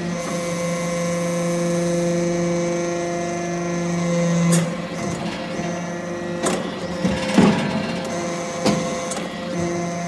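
Hydraulic metal-chip briquetting press running: a steady hum with a low tone, which changes at a sharp click about four and a half seconds in, then a burst of metallic clanks and knocks around seven seconds in as the press cycles.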